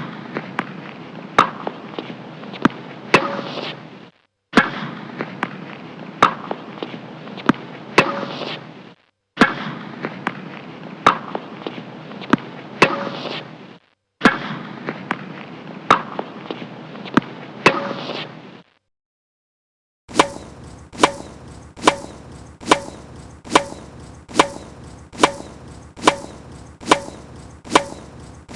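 Tennis ball hits: sharp pops about one a second over a steady hiss, in four short takes separated by brief gaps. After a silent pause of about a second and a half, a cleaner take follows with very evenly spaced hits, about three every two seconds.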